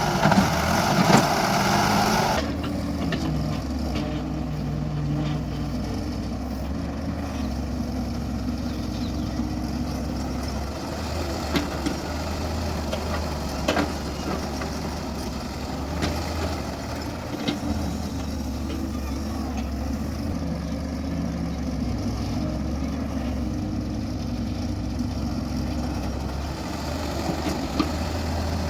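Heavy diesel engine running steadily at a low, even pitch, with a few short knocks and clanks. A louder, harsher sound fills the first two seconds.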